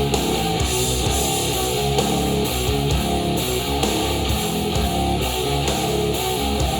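Music played through Edifier powered bookshelf speakers and picked up by microphone: strummed guitar over a steady beat.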